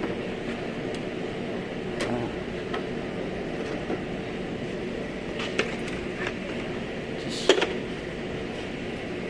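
Scattered clicks and knocks of fender and bumper parts being pulled and worked loose from a damaged Toyota Land Cruiser, over a steady machine hum. The sharpest knock comes about seven and a half seconds in.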